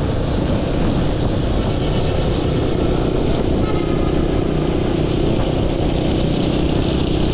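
Steady wind and road noise from riding a motorbike, with the engine running under it.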